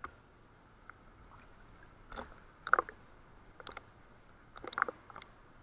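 Irregular crackling clicks and small splashes of water around a camera held half-submerged at the surface, with the loudest clusters a little under three seconds in and near the end.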